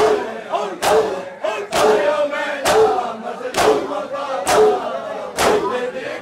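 A crowd of men doing Shia chest-beating (matam), slapping their bare chests with open hands in unison about once a second, with chanting voices between the slaps.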